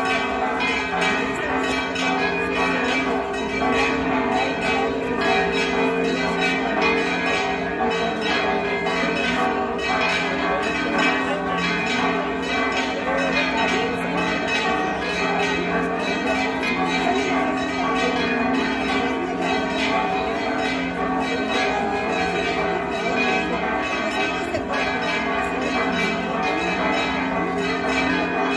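Church bells ringing in a rapid, continuous peal, many strikes overlapping so the ringing never lets up.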